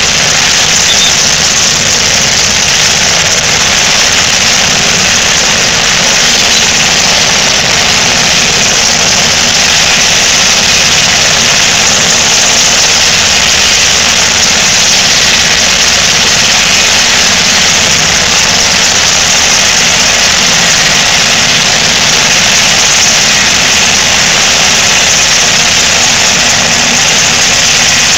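Sikorsky UH-60 Black Hawk helicopter running on the ground with its main rotor turning, its twin turboshaft engines and rotor making a loud, steady noise that holds level throughout.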